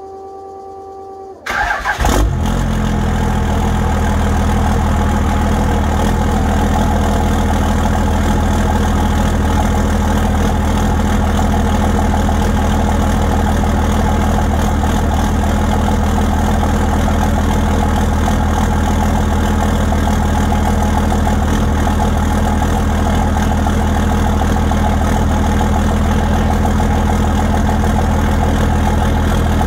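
24-valve Cummins 5.9 L inline-six turbo diesel cranking and firing about a second and a half in, then settling into a steady idle. It is a cold start at about 35 °F.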